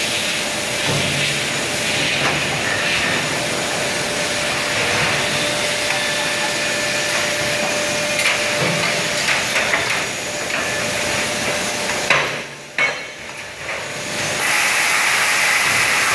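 Cold chamber die casting machine running: a steady hiss and hum with scattered knocks. The noise drops away for about two seconds near twelve seconds in and comes back as a louder hiss.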